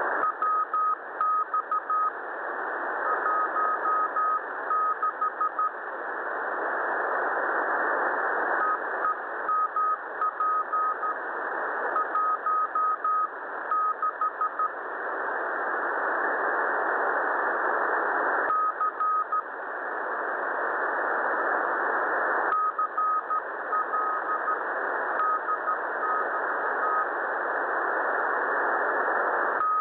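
Morse code on 7011 kHz received on a shortwave radio: a single steady beep keyed in dots and dashes, sent in short groups with pauses between them. Underneath is the receiver's hiss, which swells up in the pauses.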